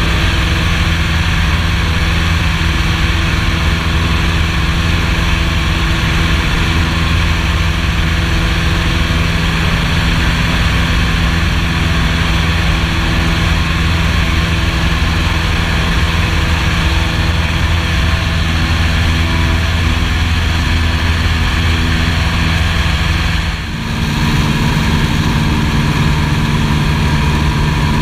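Piper PA-18 Super Cub's piston engine and propeller droning steadily in flight, heard from inside the cockpit. Near the end the sound dips briefly and the engine note comes back at a slightly different pitch.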